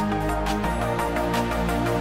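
Background music: an electronic instrumental track with sustained notes over a steady beat.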